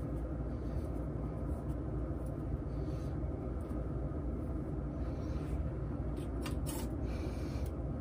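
Steady low rumble, with a few faint clicks and rustles about six and a half to seven seconds in as hair is braided and a metal hair clip is handled.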